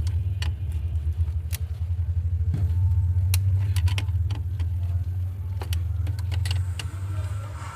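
Toyota Corolla engine idling steadily, with scattered light clicks and metallic clinks over the low hum.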